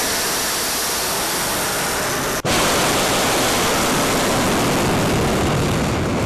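Ballistic missile's solid-fuel rocket motor at launch from a rail car: a loud, steady rushing noise that starts abruptly, breaks off for an instant about two and a half seconds in, and resumes a little louder.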